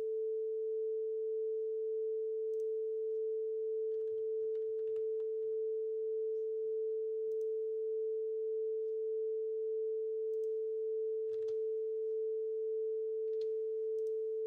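Steady 440 Hz sine tone from an online tone generator, played through computer speakers at about 75 dB as a calibration reference for a sound sensor. A few faint clicks sound over it.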